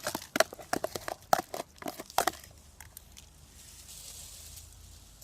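Cooking at a cast-iron kazan over an open fire: a quick run of sharp clicks and scrapes for about two seconds, then a faint steady sizzle from the pot.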